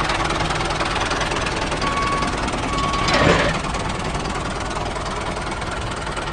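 A small engine running steadily with a fast, even knock. Two short high beeps sound around two and three seconds in, followed by a brief louder burst.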